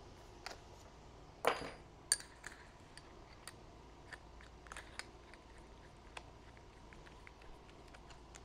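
Scattered light clicks and knocks of tools being handled in a workshop, with one louder clatter about one and a half seconds in and a sharp click just after it.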